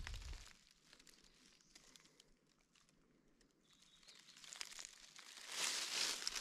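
Footsteps crunching through dry leaf litter: a thud at the start, a few seconds of near stillness with faint ticks, then crunching steps resuming about five and a half seconds in.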